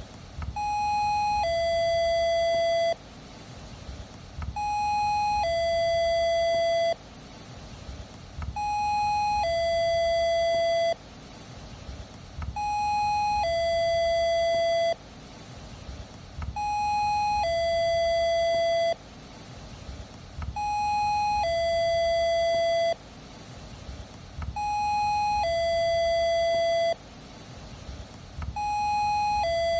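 Doorbell chime ringing a two-note ding-dong, a short higher note followed by a longer lower one, repeating about every four seconds; each note holds steady and cuts off sharply.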